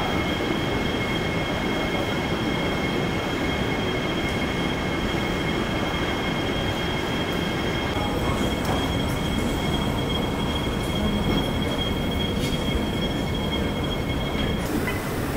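Steady mechanical rumble with two constant high-pitched whines, which cut off near the end, and a scatter of light ticks in the second half.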